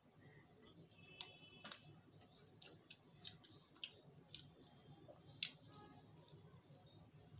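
Faint eating sounds: a fried samosa's crisp pastry being torn and bitten, heard as scattered sharp clicks and crackles, the loudest about five seconds in.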